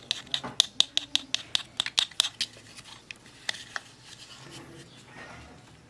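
A rapid run of sharp clicks, about five a second, that stops about two and a half seconds in, followed by two more single clicks and faint rustling.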